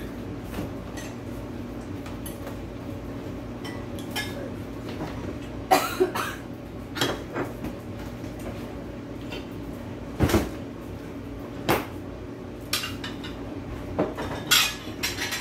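Dishes and cutlery clinking and knocking as a dishwasher is unloaded and the dishes are put away: scattered sharp clinks with gaps between them, over a steady low hum.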